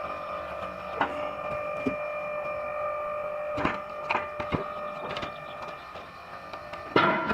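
A machine running with a steady whine, broken by sharp knocks about one, four and seven seconds in, the last the loudest. It is most likely the motor or hydraulic pump of a multi-wedge wood splitter working on logs.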